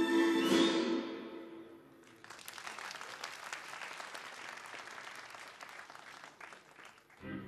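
Music fades out over the first second or two, then an audience applauds for about five seconds; new music starts just before the end.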